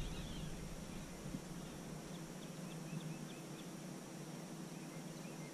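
Quiet creekside ambience with a bird giving a rapid series of short, high chirps, about three a second, from a couple of seconds in.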